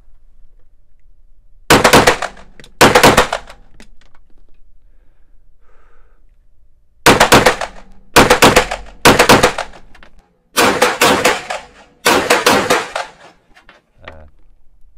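Canik TP9 SFX Mete 9mm pistol fired in doubles, each shot ringing in the echo of an indoor range. There are two shots about a second apart near the start, three more around the middle, then quicker shots bunched together near the end.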